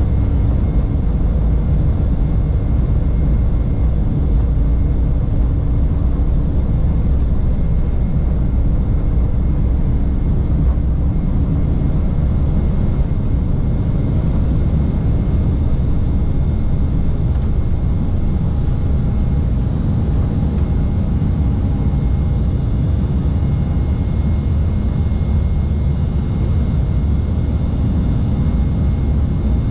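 Embraer 195's twin GE CF34-10E turbofan engines at high thrust on takeoff and climb-out, heard inside the cabin: a steady, loud low rumble with a faint high whine that grows a little stronger in the second half.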